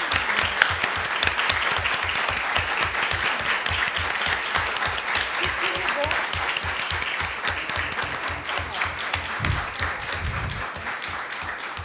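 Audience applauding: a sustained round of clapping with a steady pulse of nearby claps underneath, easing off slightly near the end.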